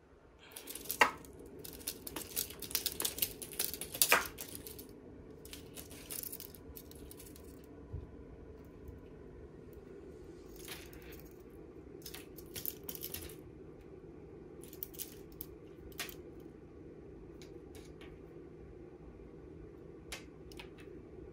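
Cat teaser toy rattling and rustling in quick clicky bursts for the first few seconds, then only occasional single clicks.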